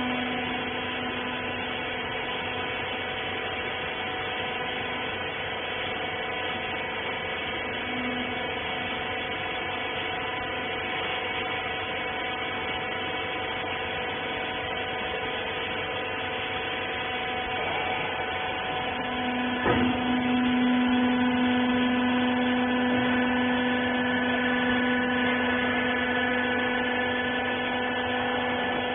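Hydraulic pump motor of a used-clothes baler running with a steady hum. About twenty seconds in there is a click, and the hum gets louder.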